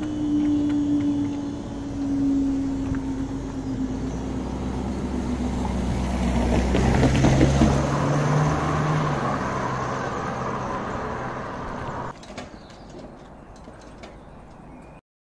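Level crossing barriers rising with a steady machine hum that sinks slowly in pitch, then a car driving across the crossing, loudest about seven to eight seconds in. The sound drops away suddenly near the end.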